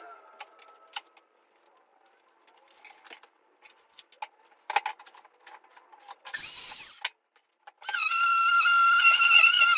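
Scattered knocks and clicks of workshop handling, a short noisy burst about six seconds in, then background music with held, violin-like tones starting near the end.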